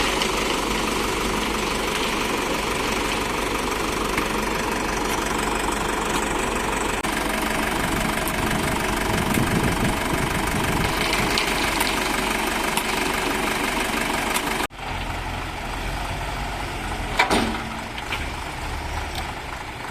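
Heavy diesel engine running steadily close by. About three-quarters of the way in, the sound cuts abruptly to a quieter engine, and a brief sharp sound follows a couple of seconds later.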